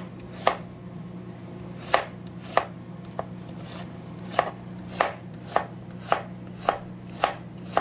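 Kitchen knife chopping cucumber on a plastic cutting board: sharp knocks of the blade hitting the board, a few spaced-out cuts at first, then a steady run of about two a second from about halfway.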